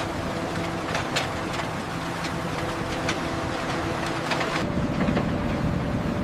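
Heavy construction machinery running with a steady hum, with sharp metallic knocks about once a second. About four and a half seconds in, it gives way to a deeper, wind-like rumble.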